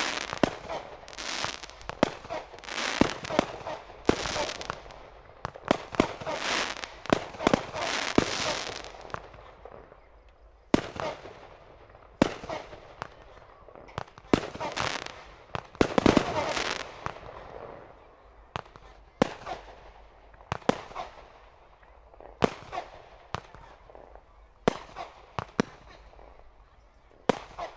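Class C consumer aerial fireworks going off: a rapid run of bangs and crackle for the first eight or nine seconds, then sparser sharp reports, with another dense stretch of crackling about midway.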